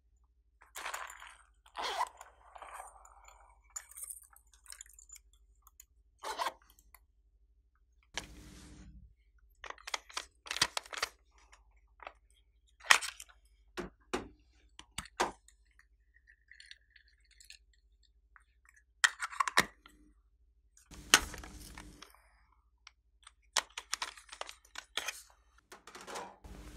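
Slime being squished and mixed by hand, giving irregular sticky clicks, pops and crackles with short pauses between them.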